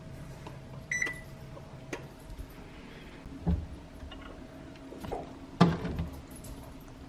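Kitchen utensils and bowls clinking and knocking a handful of times during baking preparation, one clink about a second in ringing briefly, the loudest knock past the middle, over a faint steady appliance hum.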